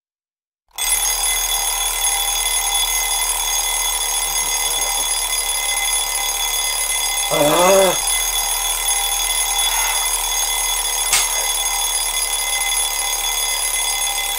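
Smartphone alarm ringing loudly and steadily, starting about a second in, with a short sleepy groan from the person it is waking about halfway through.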